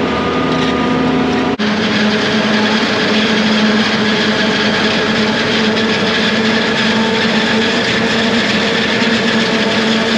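Self-propelled forage harvester running steadily under load while chopping standing corn: a continuous loud machine drone with a steady hum. About a second and a half in, the sound changes abruptly to another, equally steady drone of the same machine.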